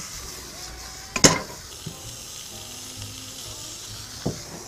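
Wild mushrooms sizzling steadily as they fry in olive oil in a frying pan. A sharp knock about a second in and a weaker one near the end.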